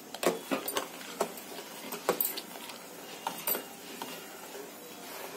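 Steel spoon stirring milk and rice in a steel pot, clinking and scraping against the pot in irregular knocks as coarse sugar is mixed in.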